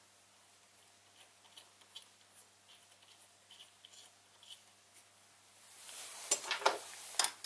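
Hands handling metal parts on a milling machine: faint scattered taps and clicks. About six seconds in come a rustle of movement and a few sharp metallic clicks.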